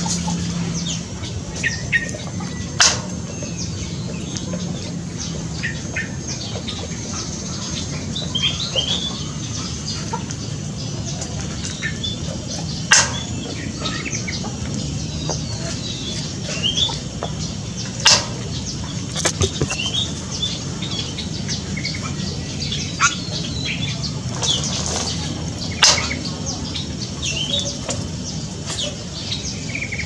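Aviary birds giving many short, high chirps, one every second or so, over a steady background hiss and low hum. About five sharp knocks come a few seconds apart.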